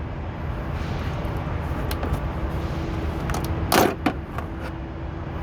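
Plastic clicks and a short clatter, loudest about four seconds in, as the air filter is worked out of its plastic air box by hand, over a steady low rumble.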